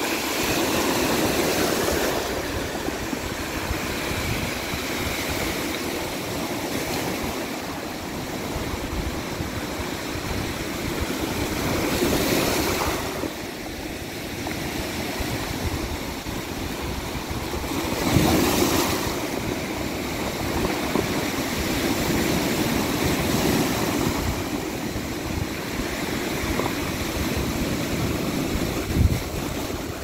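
Rough sea surf breaking and washing over a pebble-and-rock beach in a continuous wash of foam, swelling louder as the bigger waves come in, three times most strongly.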